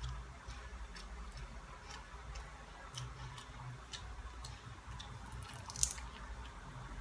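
Close-up chewing and mouth noises of a person eating banana with boneless danggit (dried fish): soft squishy chewing with small scattered clicks and smacks, and one sharper click just before the end.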